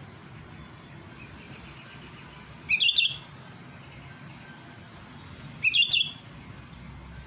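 Sooty-headed bulbul (kutilang) calling: two short, loud, quickly rising phrases about three seconds apart, with faint softer chirps before the first.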